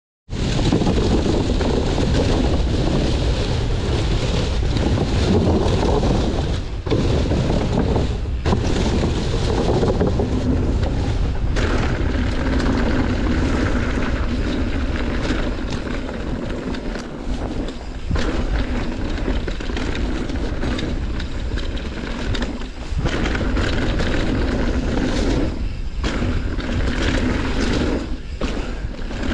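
Wind buffeting the microphone of a camera on a mountain bike being ridden down a trail, over the rumble and rattle of the tyres and bike on the trail surface. The noise is steady and loud, with a few brief lulls.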